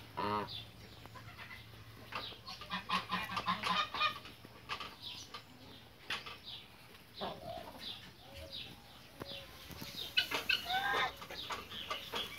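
Domestic geese calling with short, soft clucking notes, a few louder honks about ten seconds in.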